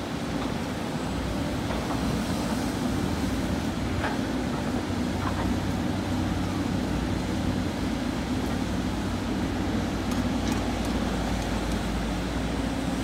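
Sany hydraulic excavator's diesel engine running steadily under working load as it swings and digs, with a few faint knocks along the way.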